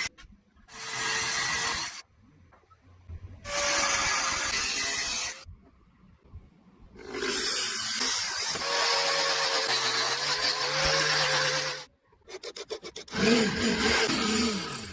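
A tool cutting or shaping wood in several separate bursts of scraping noise, each one to five seconds long with short pauses between. Just before the last burst comes a quick run of rapid clicks.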